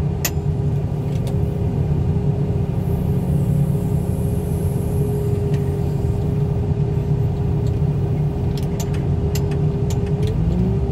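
Engine and hydraulics of a grapple loader running steadily under load, a low rumble with a constant whine; about ten seconds in the pitch rises as the engine revs up. A few sharp metallic clicks come near the end.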